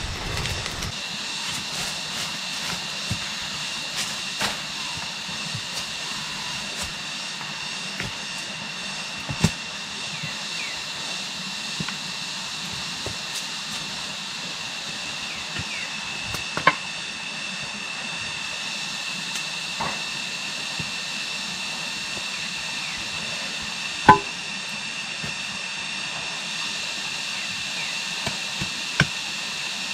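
Steady high-pitched hiss with a faint steady high tone running through it, broken by a handful of sharp, isolated knocks, the loudest about two-thirds of the way through.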